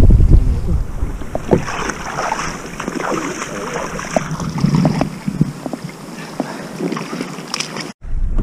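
Wind on the microphone and water slapping and splashing against a small boat on choppy water, with scattered knocks. The sound breaks off suddenly for a moment near the end.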